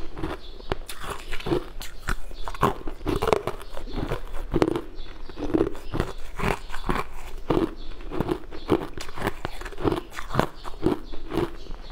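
A person biting and chewing frozen coloured ice cubes, with repeated sharp crunches coming a few times a second.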